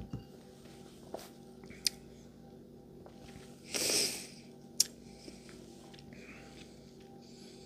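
A heavy crystal tumbler is set down on a coaster on a bar top, giving a short thump. Then come the mouth sounds of someone tasting neat whiskey: a few soft lip-smacking clicks and one loud breath about four seconds in.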